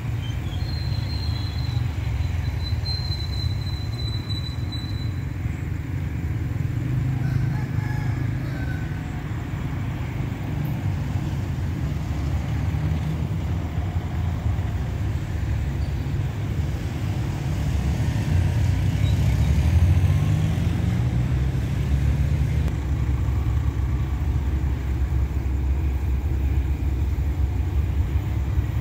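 Low, steady rumble of an approaching Alsthom diesel-electric locomotive's engine, still out of sight, swelling somewhat past the middle as the engine note shifts. A thin high whistle sounds briefly near the start.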